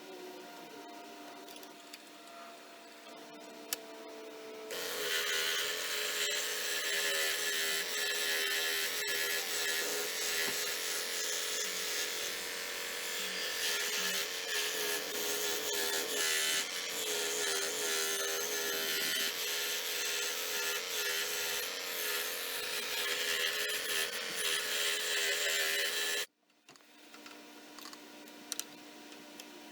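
Harbor Freight (Central Machinery) 16-inch scroll saw cutting wood with a #5 pinless blade: a steady motor tone under the rasp of the blade. It starts about five seconds in and cuts off abruptly near the end.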